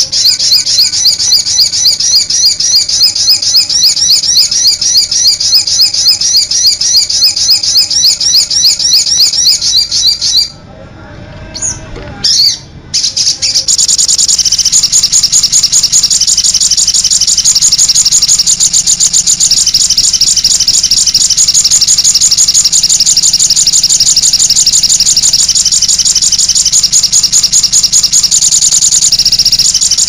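Olive-backed sunbird song: rapid, high-pitched trills of quickly repeated notes. The song breaks off briefly about ten seconds in, then resumes as a dense, continuous trill.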